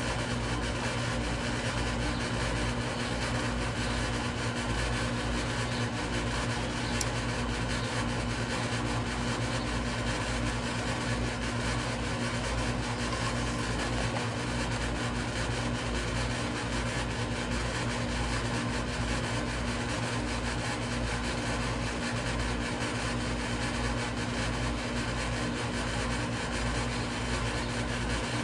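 Air conditioning unit running with a steady, even hum.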